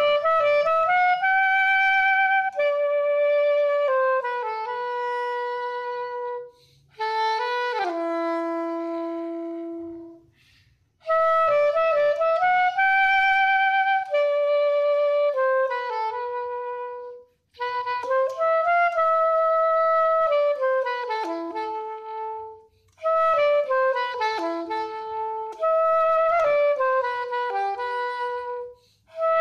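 Curved soprano saxophone playing a slow unaccompanied melody in phrases of a few seconds, with short breaks for breath between them. One phrase ends about eight seconds in on a long low held note.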